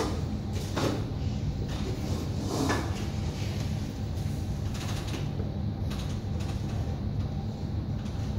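Marker pen drawn across a whiteboard in a few short scratchy strokes, about one, three and five seconds in, over a steady low hum.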